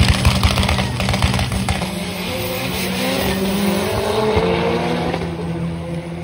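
Two drag-racing cars launching off the starting line and accelerating hard down the strip. A crackling engine and exhaust sound at first, then the engine pitch rises as they pull away, and the sound fades as they get farther off.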